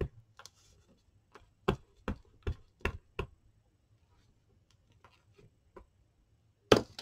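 Glue stick tapping and rubbing on a paper frame over a phone book: a string of short, sharp taps, about six in the first few seconds, fainter ones after, and one louder knock near the end.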